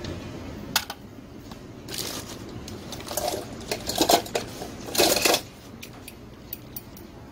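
Loose metal hand tools clinking and rattling as a hand rummages through them on a workbench, with a single sharp click about a second in and the loudest clattering around four to five seconds in.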